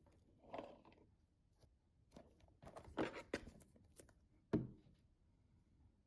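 Light handling sounds of cardboard jigsaw puzzle pieces being moved and set down: a few soft scrapes and taps, a cluster about three seconds in and the sharpest tap about four and a half seconds in.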